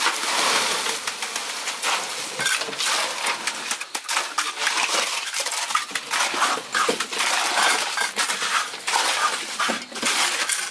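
Steel shovels scraping and turning wet concrete and gravel by hand, a steady gritty scraping with many small clinks of metal on stone.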